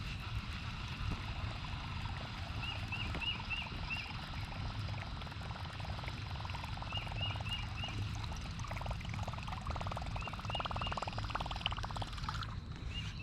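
A bird repeats short groups of three to five quick, high, hooked chirps every couple of seconds over a steady low rumble of wind and water. A rapid ticking joins in during the second half and stops shortly before the end.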